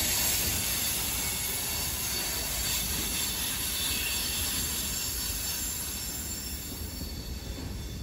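Freight train tank cars rolling past on steel rails, with a faint high wheel squeal. The sound fades away as the end of the train moves off.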